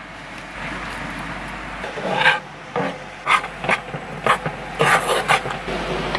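Spoon stirring porridge in a saucepan, scraping the bottom of the pan in a run of short, irregular rasping strokes.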